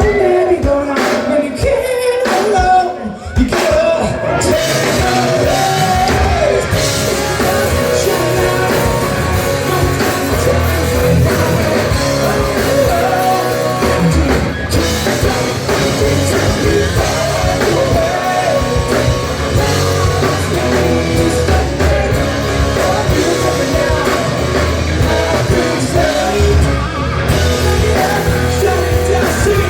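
Rock band playing live with a sung vocal line. It opens with a few short, sharp hits together, then the full band plays on continuously.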